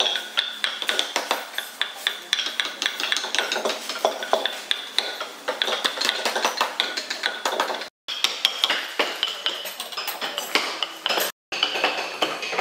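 Small steel carving chisel pushed by hand into a hardwood relief figure, cutting out chips in a fast run of short, sharp scraping clicks. The sound cuts out briefly twice.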